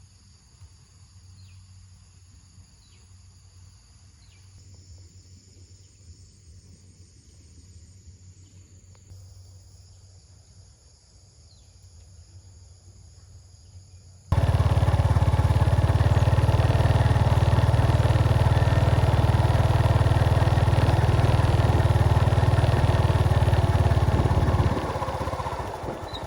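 Quiet outdoor ambience with a faint low hum and a few faint high chirps, then, about halfway through, a loud steady low rumble that starts abruptly and fades down near the end.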